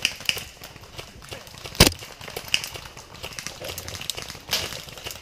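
A single sharp airsoft gun shot about two seconds in, with scattered light clicks and rustling around it.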